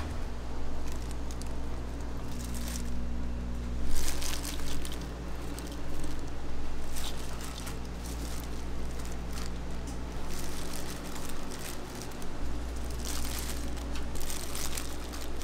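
Kitchen food-prep handling sounds: irregular rustling, crinkling and light clatter over a steady low hum.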